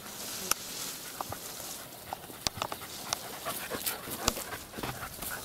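Dogs panting as they are led up in harness, with several short sharp clicks scattered through.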